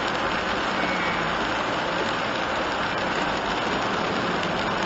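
Steady road noise of a kei van driving on a rain-soaked road, heard from inside the cabin: tyres hissing on wet asphalt over the engine and rain.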